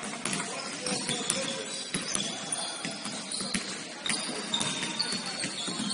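Indoor basketball play: sneakers squeaking on the court and a ball bouncing, over a murmur of voices.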